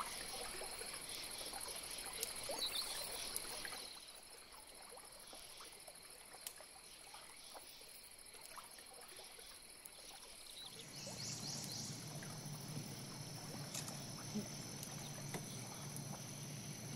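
Outdoor insect chorus: a steady, high-pitched drone of calling insects. About four seconds in it turns quieter. About eleven seconds in, a second high insect tone and a low steady hum join.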